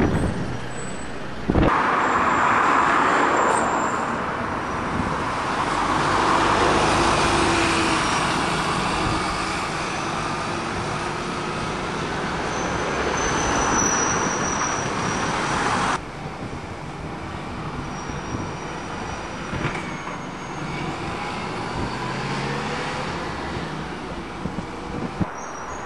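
City buses and road traffic passing, with diesel bus engines running over tyre and road noise. The sound changes abruptly twice.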